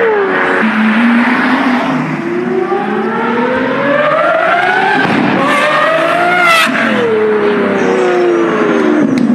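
Lamborghini engine and exhaust under hard acceleration, the pitch climbing in a long pull, then a gear change about five seconds in with a sharp crack, a short second climb, and the pitch falling away over the last couple of seconds.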